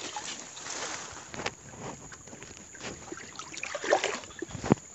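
Leafy plants rustling and shallow muddy water sloshing as hands push through them, with scattered small crackles and one sharp knock near the end.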